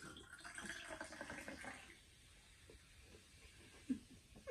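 Sprite soda poured from a can into a glass of ice, a fizzing, splashing pour that lasts about two seconds and then fades to soft ticks. A single light knock comes near the end.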